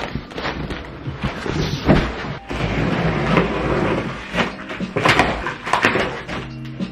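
A large cardboard shipping box being handled: scraped across the floor, its packing tape slit open along the top seam, and its flaps pulled back, with repeated knocks, scraping and rustling of cardboard.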